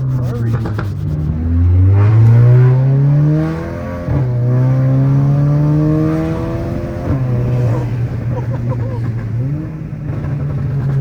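Turbocharged 2.0-litre four-cylinder engine and exhaust of an Audi A3 on a Stage 2 tune with an aftermarket downpipe and Borla exhaust, accelerating: the engine note climbs, drops at a gear change about four seconds in and again about seven seconds in, then climbs and holds. Heard from inside the cabin.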